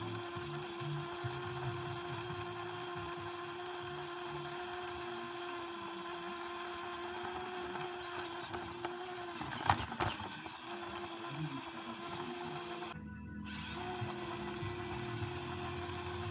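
Axial electric RC car driving, its motor and gears giving a steady whine. A sharp knock comes about ten seconds in.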